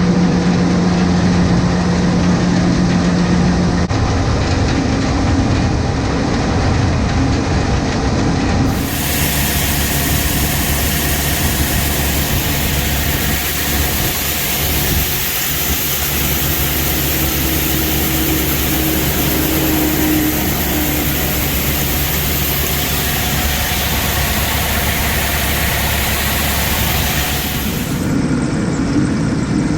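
Combine harvester running steadily while shelling corn, a continuous machine drone. About nine seconds in it turns abruptly to a brighter, noisier rush, which drops back near the end.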